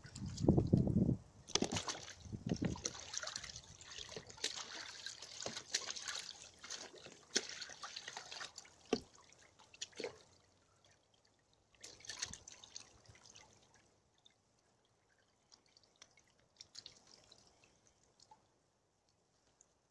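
Domestic goose bathing in a shallow plastic tub of water: splashing, sloshing and dripping water, with sharp little knocks. The splashing is busy for the first ten seconds or so, then comes only in short bursts.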